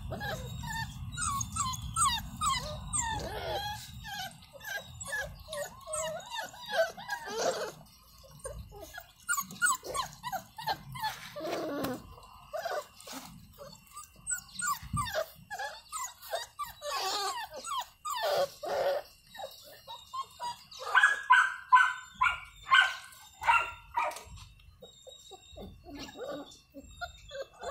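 Young pit bull puppies whimpering, squealing and yelping as they scuffle together, with a run of louder, rapid yelps about three-quarters of the way through.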